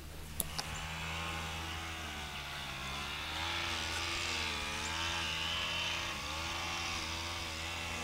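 An engine running steadily at some distance, its pitch wavering slightly up and down. Two light clicks come just after it starts.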